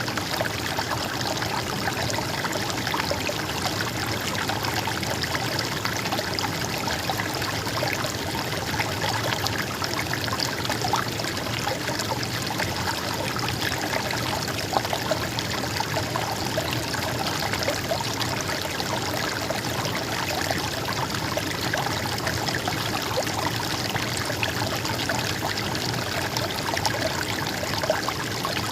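A stream of water flowing and trickling steadily over rocks, a dense, even rush of water with many small splashes.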